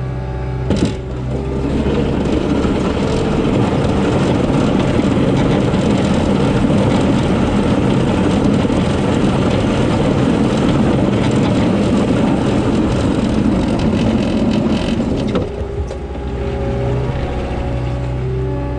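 Cat track skid steer's diesel engine working under load, with a loud, dense rumble of machinery while plowing snow. Near the end it settles back to a steady running hum.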